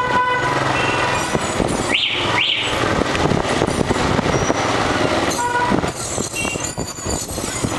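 Motorbike riding through street traffic: steady engine and wind noise, with two short rising squeaks about two seconds in.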